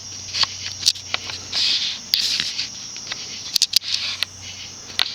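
Crickets trilling steadily in the background, with scattered sharp clicks and brief rustles close to the microphone.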